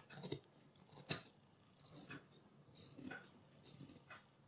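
Large tailor's shears cutting through thin suit fabric: a run of soft, separate snips, about one a second, the sharpest a little after the first second.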